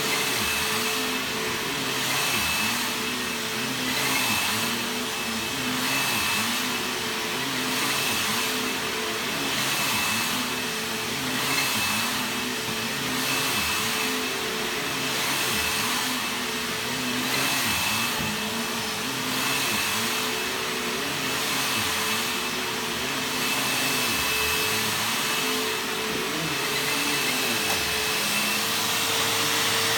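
Bissell bagless upright vacuum cleaner running steadily on carpet, its motor hum swelling and fading about every second or two as it is pushed back and forth.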